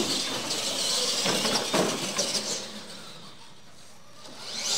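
Radio-controlled monster trucks launching and running flat out: motor and gear whine with tyres scrubbing on the hard floor, loudest over the first two seconds, then easing off. Near the end a second rising whine swells as a truck comes close.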